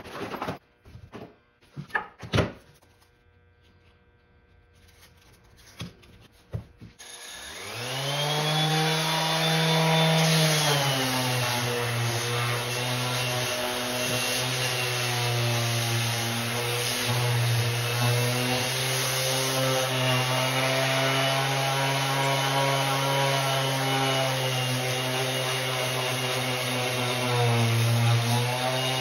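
A few knocks and handling clicks as a Bosch ROS20VSC 5-inch random orbit sander is lifted from its zippered case. About a quarter of the way in, the sander's motor spins up to speed and then runs steadily, a hum and a high whine over the rasp of the sanding disc on a black walnut slab.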